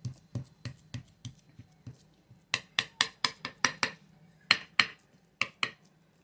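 A utensil clinking repeatedly against a dish while seasoned ground beef is mixed and worked, in a run of sharp taps about three or four a second. The taps grow louder about two and a half seconds in.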